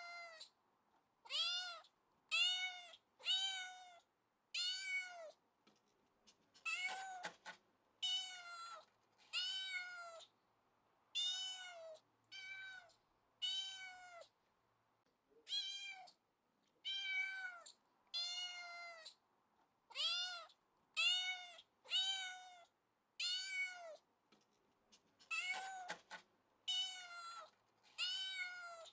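Domestic cat meowing over and over, one short meow roughly every second, each call rising and then falling in pitch, with a few brief pauses between runs.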